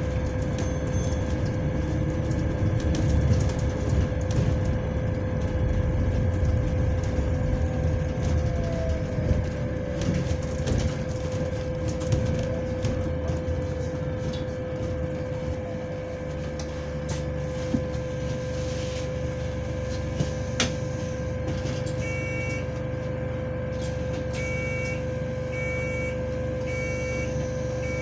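Inside a moving double-decker bus: a steady mid-pitched whine, the uploader's 'weird fan noise', holds over the low rumble of the running bus. Near the end a repeated short beeping comes in.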